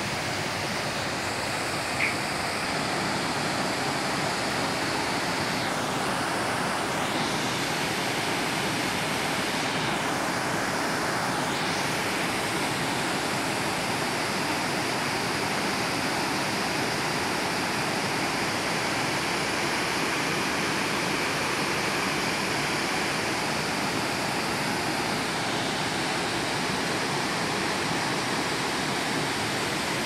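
Steady rush of a tall cascading waterfall and the rocky river rapids below it.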